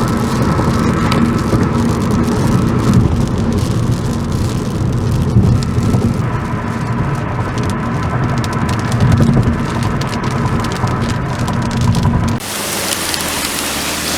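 Thunderstorm: heavy rain pattering with many sharp drop ticks over a continuous low rumble of thunder. About twelve seconds in it changes suddenly to a steadier, lighter rain hiss without the rumble.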